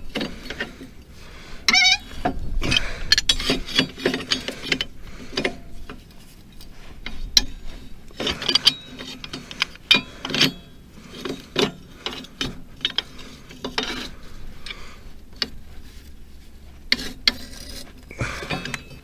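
Wrench clicking and clanking on metal as a stuck blade bolt on a mower-deck spindle is turned loose by hand, with a brief squeak about two seconds in.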